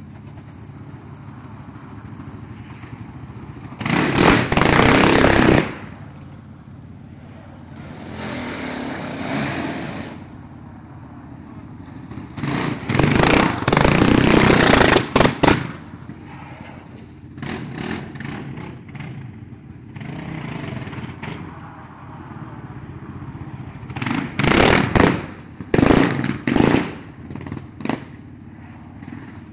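Yamaha Raptor 660 quad's single-cylinder four-stroke engine running and being revved hard in repeated throttle bursts: a long burst a few seconds in, a longer one around the middle, and a quick string of short blips near the end, with quieter running in between.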